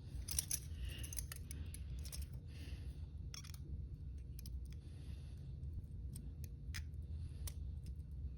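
Small metal clicks and scrapes of lock picks working in the keyhole of double-locked hinged handcuffs, irregular ticks with a few longer scratches, over a steady low hum. The stubborn side does not release.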